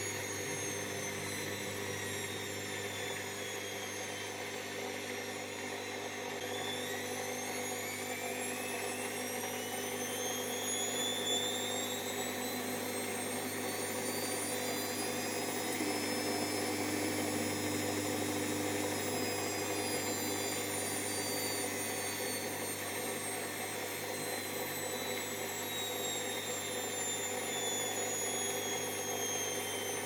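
Whirlpool AWO12963S front-loading washing machine spinning its drum: a steady hum under a motor whine that dips, climbs over about ten seconds as the drum speeds up, then eases slightly.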